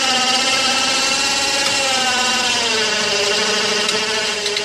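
12-volt ATV winch motor whining steadily as it reels in cable and lifts one end of a heavy stone; its pitch sags lower about halfway through as the load comes on.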